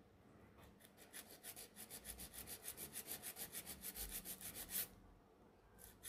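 Hand nail file rasping back and forth along the side of a gel nail in quick, even strokes, about six a second, grinding off gel that ran over. The strokes start about a second in, grow louder, stop near five seconds and start again just before the end.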